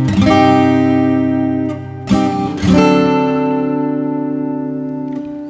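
Steel-string acoustic guitar: a chord strummed at the start and another about two seconds in, each left to ring and slowly fade.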